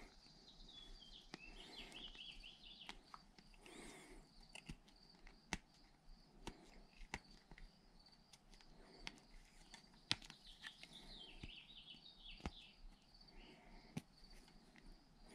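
Faint, scattered small clicks and taps of steel tweezers against the metal body of a Ford 7.3 Powerstroke HEUI diesel injector as an O-ring is picked out of its groove.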